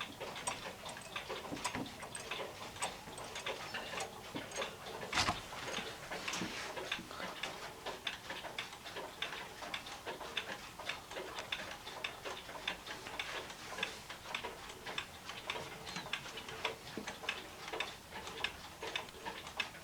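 Waltham 31-day spring-driven wall clock ticking steadily in quick, even clicks, with one louder knock about five seconds in. The movement runs for only about a minute after winding and then stops, for a reason not yet found.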